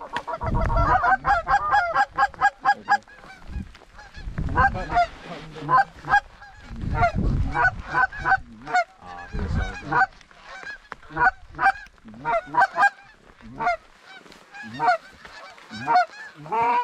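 Geese honking: many short honks in quick succession, densest in the first few seconds and continuing in scattered runs, with several low rumbles between them.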